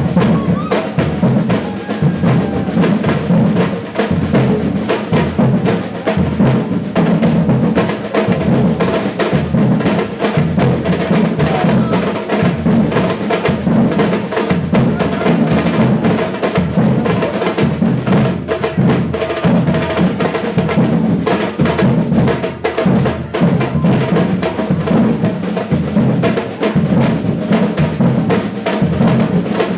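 A batucada ensemble of Brazilian percussion playing a loud, dense drum groove, with deep bass drums pulsing under snare and other drum strokes throughout.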